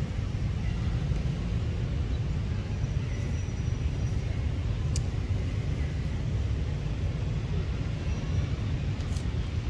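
Steady low outdoor rumble, with a few faint short high chirps and one sharp click about five seconds in.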